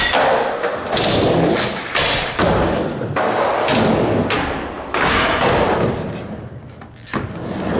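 Skateboard rolling on a concrete and wooden park floor, with a series of heavy thuds and knocks from the board popping and landing and hitting a rail.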